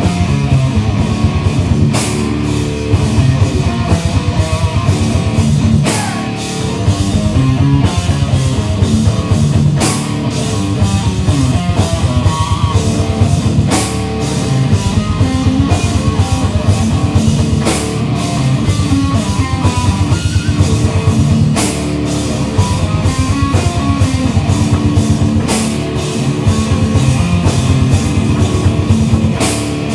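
Live rock band playing a loud instrumental passage with guitar, bass and a driving drum kit, with cymbal crashes at regular intervals and no singing.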